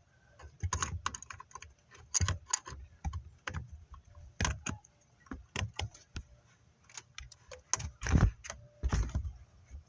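Irregular metallic clicks, taps and clanks from work on the spring clamp of the upper radiator hose, with two louder thumps near the end.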